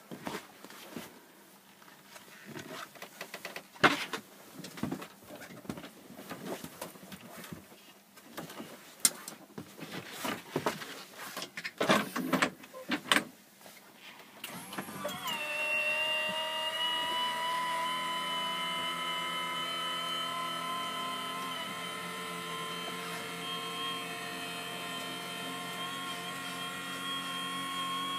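Clicks and knocks of handling a hinged seat-box lid, then about halfway in the electric motor of a motorised rock-and-roll bed starts and runs with a steady whine, driving the bed back up into its seat position.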